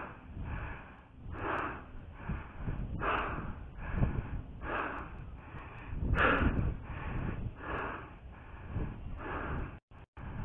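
An airsoft player breathing hard close to the microphone, one noisy breath roughly every second, with a few faint sharp clicks. The sound cuts out briefly near the end.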